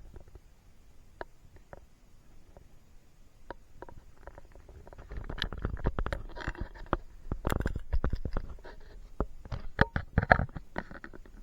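An animal chewing and cracking nuts: irregular sharp clicks and crunches, sparse at first and coming thick and fast from about five seconds in.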